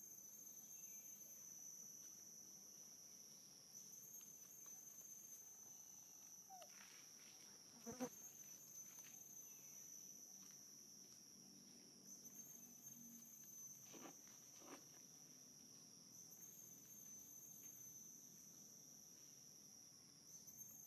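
Faint, steady high-pitched insect chorus that swells a little every few seconds, with a sharp click about eight seconds in and two softer clicks around fourteen seconds.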